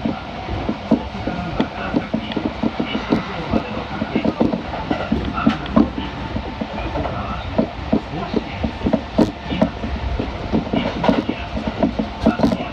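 Kintetsu electric train heard from inside the car while running: a steady rumble of wheels and running gear, with frequent irregular clicks and knocks as the wheels run over the track.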